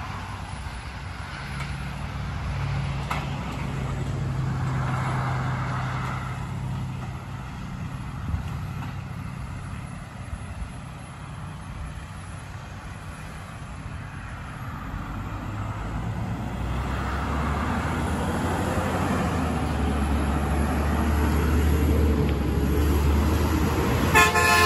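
Mack LEU garbage truck's engine running with a steady low drone, quieter through the middle and growing louder over the last several seconds. A short horn toot sounds right at the end.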